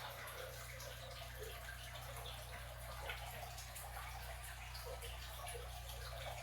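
Hunter Original ceiling fan running on low speed: a faint, steady motor hum with a soft even rush of air from the blades.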